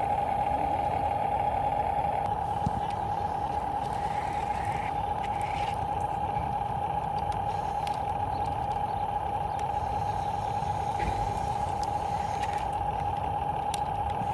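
Radio-controlled construction model running with a steady, unchanging high whine from its small electric drive, over a low rumble, with a few faint clicks.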